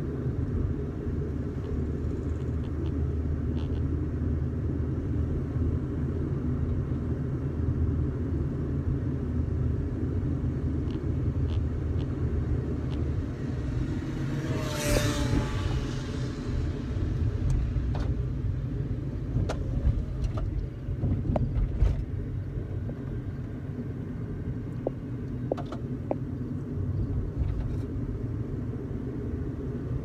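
Car engine and tyre noise heard from inside a moving car: a steady low rumble. About halfway through comes a brief louder hiss with a faint tone in it, and a few short clicks and knocks follow.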